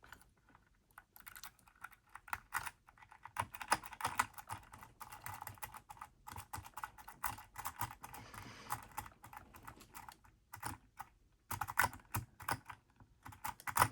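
Metal lock pick raking the pins of a lock: rapid, irregular clicking and scraping in quick runs with short pauses.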